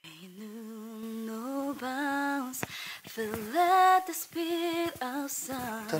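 A woman singing unaccompanied into a microphone: a few held notes with vibrato that step up and down in pitch, with short breaths between phrases. It is a vocal-lesson exercise in which she tries to keep one consistent vocal placement across the notes.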